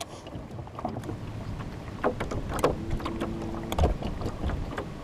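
Wind on the microphone over a low rumble, with several knocks from the boat and a brief steady hum about three seconds in.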